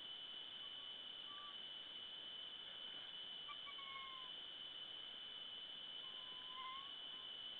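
Faint, thin animal calls: a few short whining notes, each level or slightly falling, spaced a couple of seconds apart, over a steady high-pitched hum.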